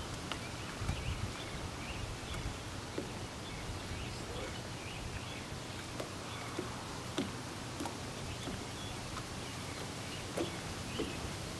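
Quiet outdoor ambience: a steady low background noise with faint, scattered bird chirps and a few soft clicks.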